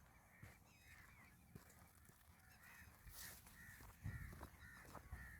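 Faint bird calls: many short, harsh repeated calls, thickest in the second half, with soft footsteps.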